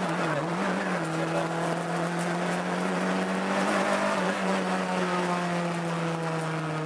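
Peugeot 306 FA7 rally car's engine, heard from inside the cabin as the car is driven at speed. The engine note wavers during the first second, then holds fairly steady over road and wind noise.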